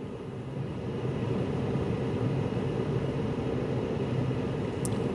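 A steady low mechanical rumble with a faint hum, swelling over the first second or so and then holding even.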